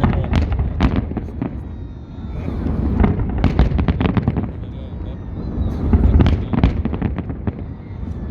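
Fireworks salute: clusters of sharp cracks and bangs in three bursts, over a continuous low rumble of booming shells.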